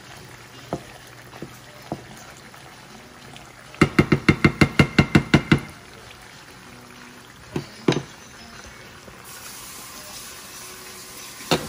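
A wooden spoon stirring a thick sauce in a small nonstick pan, then rapped about ten times in quick succession on the pan's rim, each knock with a short ring. Two more knocks follow a couple of seconds later as the spoon is laid down, over a faint sizzle of oil frying.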